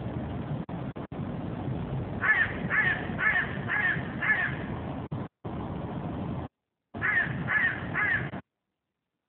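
A bird giving a run of five evenly spaced caws, then after a pause three more, over a steady low rumbling noise. The audio drops out briefly a few times and cuts to silence near the end.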